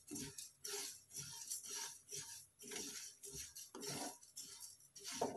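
A spatula stirring whole spice seeds (fennel, fenugreek, cumin, mustard) as they dry-roast in a nonstick frying pan: a faint, rhythmic scrape and rustle of seeds against the pan, about two to three strokes a second.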